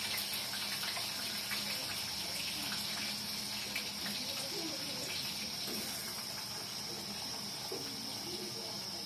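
Boiled cassava pieces sizzling steadily in hot oil in a wok, a continuous frying hiss.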